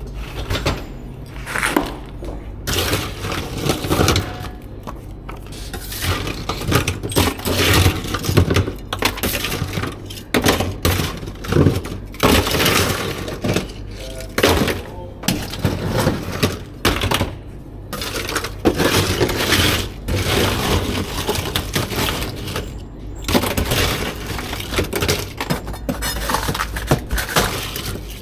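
Irregular clattering, cracking and crunching of hard objects, many sharp hits in quick succession, over a steady low hum.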